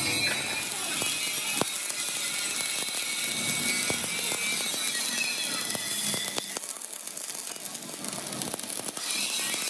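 Stick (shielded metal arc) welding on steel plate: the electrode's arc crackles and sizzles steadily, easing somewhat for a few seconds in the later part.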